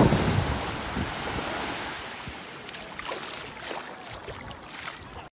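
Small waves washing up on a sandy beach, with wind buffeting the microphone. Loudest at the start, then fading to a softer wash.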